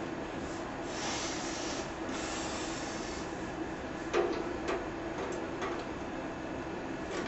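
Hands and a small hand tool working on a vintage metal fan: a rubbing, scraping stretch about a second in, then a few sharp clicks of metal on metal at the blade hub, the loudest about four seconds in. A steady low hum runs underneath.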